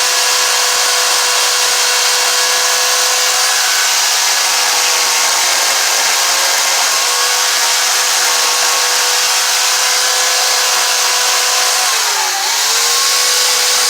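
Chainsaw running at steady high speed as its bar tip gouges into a rotten pine log. About twelve seconds in the speed briefly drops and then picks back up.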